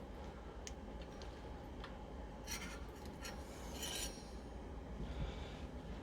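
Faint metallic clicks and a few short scrapes of a cone spanner working against a seized rear hub cone and locknut on the axle; the threads are locked tight with moisture and old grease.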